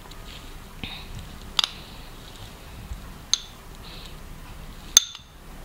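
A few sharp clinks of a metal spoon against a serving bowl and plate as chutney is spooned out, the loudest near the end.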